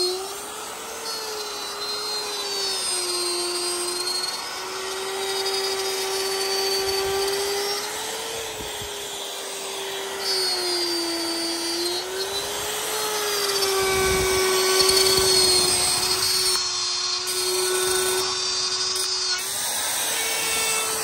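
Plunge router on a circle-cutting jig, routing a circular hole in a wooden speaker box: a steady motor whine whose pitch sags and recovers several times as the bit is pushed around the cut.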